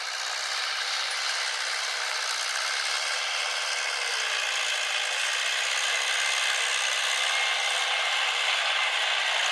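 Steady mechanical rattling and rubbing noise from working machinery, slowly growing louder.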